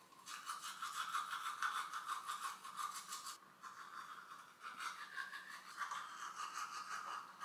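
Teeth being brushed with a toothbrush: quick, rhythmic scrubbing strokes, with a brief pause a little before halfway.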